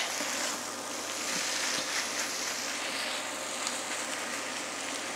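Vegetables and wild garlic sizzling gently in butter and oil in a non-stick frying pan as the garlic wilts down, with a spatula stirring and now and then lightly ticking against the pan.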